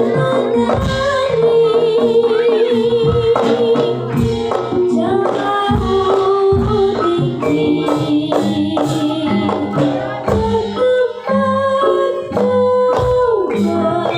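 Live Jaranan accompaniment music: a sung melody with long wavering held notes over steady drum and percussion strokes.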